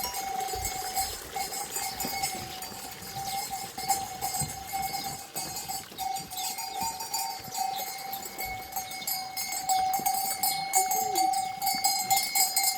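Bells on a flock of sheep and goats clanking and ringing without a break, with a faint bleat near the end.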